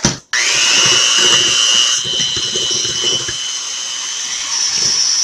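Electric kitchen mixer switched on just after the start and running steadily with a high whine, beating strawberries and powdered sugar into icing.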